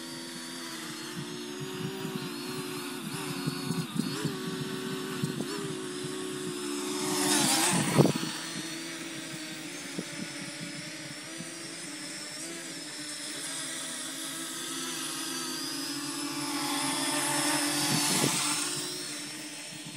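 Parrot Anafi quadcopter's propellers and brushless motors whining in a steady, slightly wavering hum as it hovers and flies low. It swells louder twice as the drone passes close, about seven seconds in and again near the end, with a brief sharp click at the peak of the first pass.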